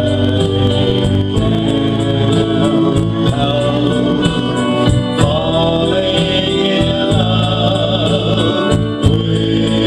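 Music with a singing voice and held keyboard chords over a steady beat.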